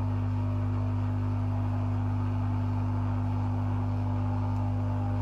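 Hot air rework station blowing steadily on a fluxed surface-mount chip to reflow its legs, a constant airy rush over a steady low hum.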